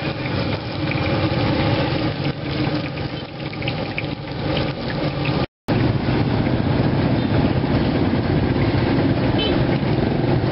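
Hot oil sizzling in a wok as frying food is turned with a metal spatula. About five and a half seconds in it cuts out briefly, then a steady, denser background noise follows.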